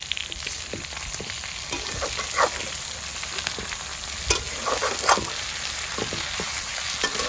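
Food frying in hot oil: a steady sizzle with scattered crackles and a few louder pops.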